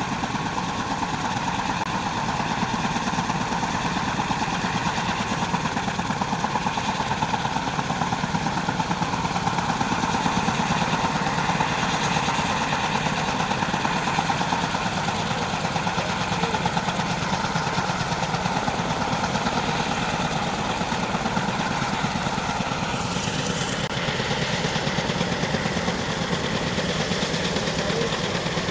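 Unmanned Kaman K-MAX helicopter hovering with a sling load. Its intermeshing twin rotors beat in a fast, steady chop over the steady whine of its turboshaft engine.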